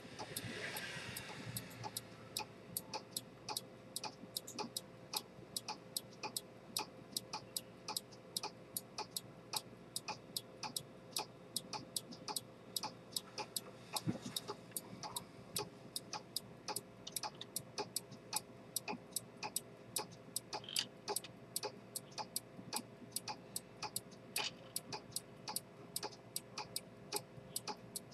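Chronometer pocket watch with a detent escapement and a blued helical balance spring ticking steadily, about two and a half sharp ticks a second. A brief rustle in the first two seconds.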